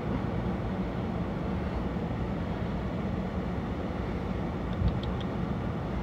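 Steady low outdoor background rumble with a faint hum, with a few small faint ticks about five seconds in.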